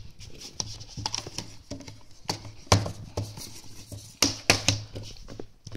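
A plastic DVD case and its loose plastic wrap being handled: irregular taps, clicks and rustles, with sharper clicks about three seconds and four and a half seconds in.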